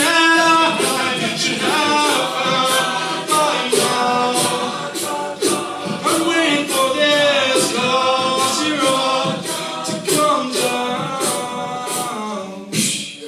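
Men's a cappella group singing, with a lead voice over layered backing harmonies and a beatboxed vocal-percussion beat keeping time about twice a second.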